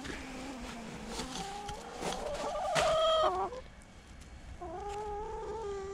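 Chickens calling: a string of drawn-out, pitched clucking calls, the loudest about three seconds in.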